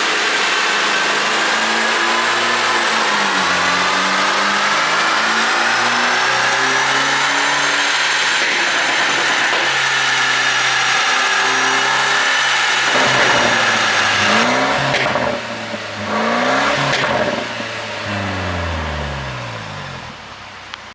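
Mercedes-Benz W205 C200 turbocharged four-cylinder engine revving up and down, with sharp cracks in the second half from an ECU tune set to make exhaust pops, then winding down and fading near the end.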